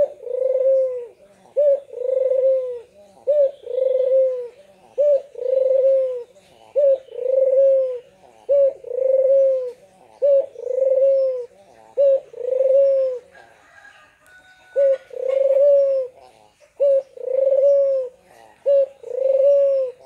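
White Barbary dove (ringneck dove) bow-cooing over and over: each coo is a short note followed by a longer rolling one, repeated about every second and a half to two seconds, with one short break about two-thirds of the way through.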